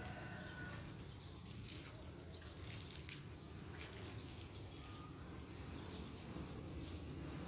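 Faint outdoor ambience with a steady low rumble, broken by brief bird calls: a short whistled note at the start, another short note about five seconds in, and scattered quick chirps.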